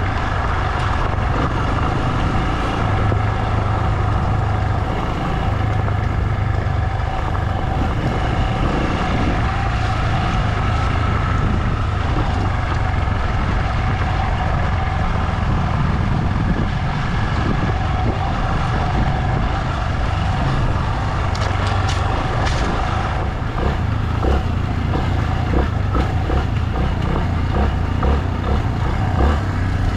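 A vehicle's engine running steadily while travelling along a forest road, heard from on board with road and wind noise, and a few sharp ticks about two-thirds of the way through.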